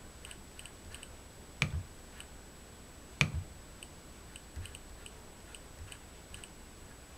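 First-generation Nest Learning Thermostat ticking softly as its ring is turned to scroll through ZIP-code digits, a few light ticks a second. Two louder clicks, about a second and a half apart, as the ring is pressed to select a digit.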